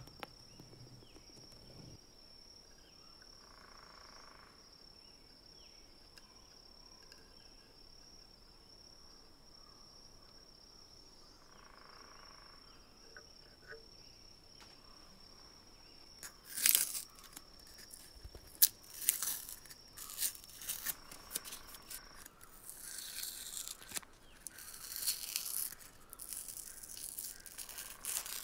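Paper towel crinkling and small sharp clicks as a red plastic lamp lens is handled and wiped, starting about halfway through and growing busier near the end. Before that it is quiet, with only a faint steady high-pitched tone.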